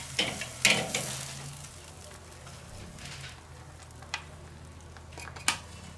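Metal grill tongs clinking and scraping against a charcoal kettle grill's cooking grate and a metal platter as steaks are lifted off, with a few sharp clinks, the loudest about a second in. A faint sizzle from the hot grill runs underneath.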